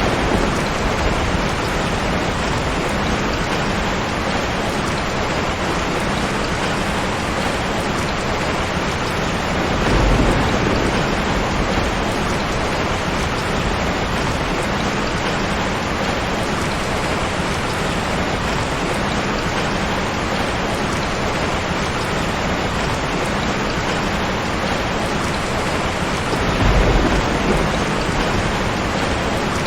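Steady heavy rain, a dense even hiss, with a low rumble of thunder about ten seconds in and another near the end.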